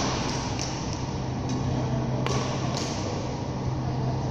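Badminton rackets striking shuttlecocks, a handful of sharp hits from the games on the courts, the loudest a little past two seconds in, over a steady low hum in the hall.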